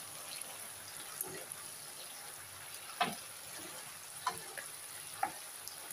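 Stir-fried spaghetti sizzling in a frying pan as it is tossed with a wooden spatula and metal tongs, a steady soft hiss with a few sharp clicks of the utensils against the pan.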